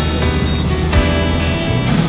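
Instrumental background music with a steady beat and held notes.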